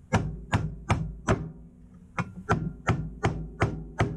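Repeated sharp taps on the metal case of a microwave magnetron, struck to open it up: about three blows a second, each with a brief ringing, in two runs with a short pause between them.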